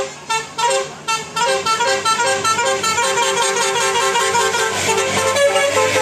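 A tour coach's multi-tone telolet basuri horn playing a fast melody of short notes that change pitch several times a second, with the bus engine's low hum beneath.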